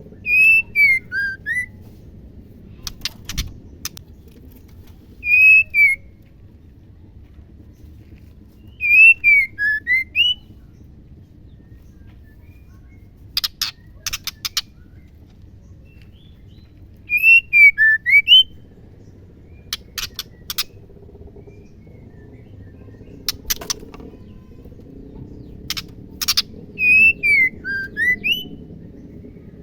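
Female white-rumped shama calling: a short whistled phrase of a few notes, falling then rising, repeated about every four seconds, alternating with sharp dry clicking calls.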